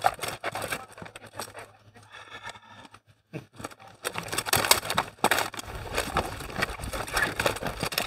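Clacks and knocks of SCA armoured combat: rattan weapons striking shields and armour, scattered at first, then a dense flurry of blows from about halfway through.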